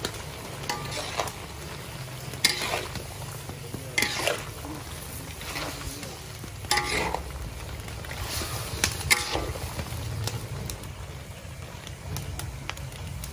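Spatula scraping and stirring diced pork belly in a large wok, the pork sizzling as it fries; irregular scrapes every second or so.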